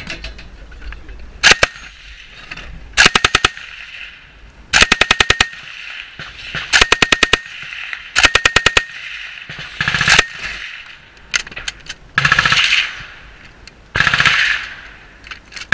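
Belt-fed machine gun firing in short bursts of several rounds each, about six bursts a second or two apart. Near the end come two longer, noisier blasts.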